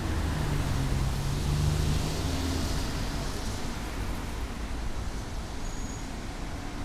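Street traffic: a steady low engine rumble from road vehicles, with a swell of tyre and road hiss as one passes two to three seconds in.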